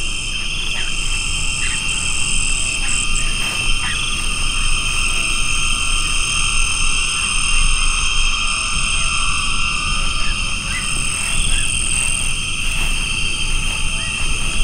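Tropical jungle animal chorus: several steady, high-pitched drones layered together, with short chirps and calls scattered through them, over a low rumble.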